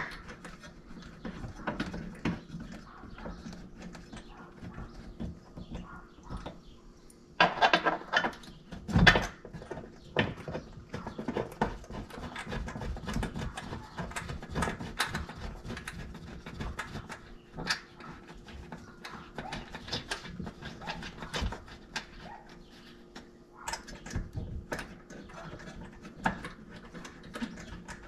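Bolts being started by hand into the metal brackets of a Rhino-Rack Backbone roof-rack mount: scattered small metallic clicks, taps and scrapes, with two louder knocks about 8 and 9 seconds in. A faint steady hum runs underneath.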